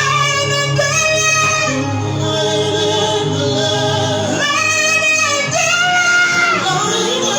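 Worship music: a female voice sings long held, sliding notes over a sustained instrumental backing.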